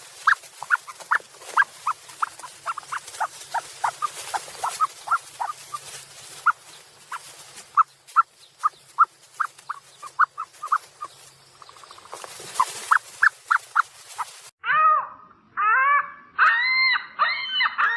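Short, sharp chirps repeating several times a second over a steady hiss. Near the end they give way to a run of longer calls, each rising and falling with several overtones.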